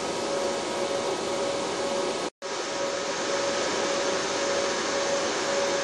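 Cooling fans of a Dell C6100 server running as a steady rush of air with a faint hum tone, as the server boots. The sound cuts out for an instant a little over two seconds in.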